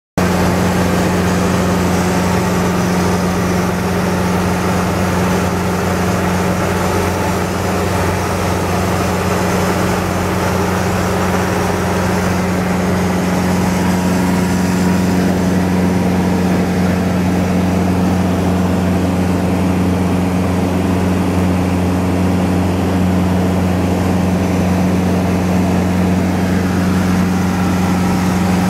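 Cessna 150's Continental O-200 flat-four engine and propeller droning steadily in flight, heard from inside the cabin, with a hiss of rushing air over it.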